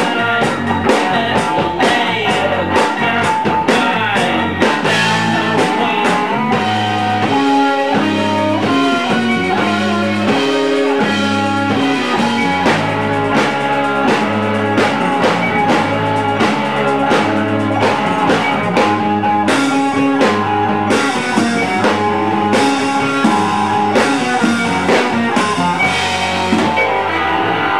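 Live band playing: electric guitars over a steady drum-kit beat and a bass line.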